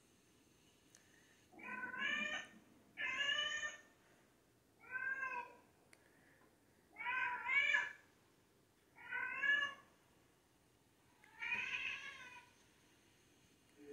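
A screaming black cat's loud, drawn-out meows played through a TV, six calls of about a second each with short pauses between them.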